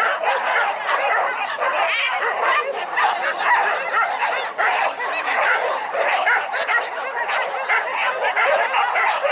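A pack of hunting dogs yelping and barking over one another in a dense, unbroken chorus.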